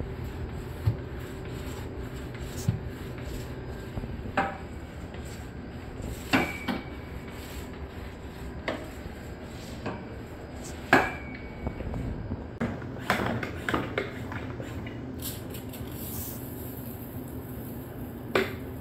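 Flat mop and its handle clacking and knocking against a tiled floor and metal table legs: about a dozen irregular knocks, a few ringing briefly like struck metal, over a steady low hum.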